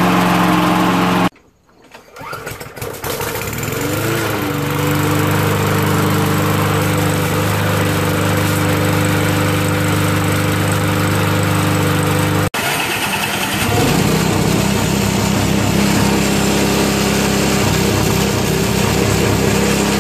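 Walk-behind lawn mower engines running, heard in separate edited clips. One mower runs steadily, then cuts off abruptly. Another mower engine catches, rises in pitch and settles into a steady run; after a second abrupt cut about two-thirds through, a small engine runs with a choppier sound.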